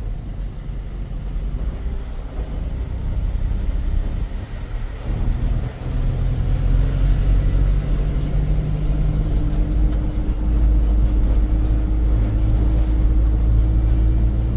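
Low outdoor rumble for the first few seconds. Then, from about five seconds in, a vehicle engine runs steadily with road rumble inside the cab, its hum creeping slightly higher in pitch as it drives.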